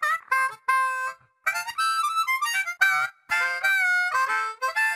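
Outro music: a harmonica playing short, separate phrases of held notes and chords.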